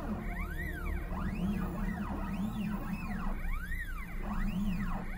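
Stepper motors of a DIY 3D-printed Dremel CNC plotter driven by GRBL, whining in repeated rising-then-falling sweeps as the axes speed up and slow down for each pen stroke. There are about five or six sweeps, each under a second long.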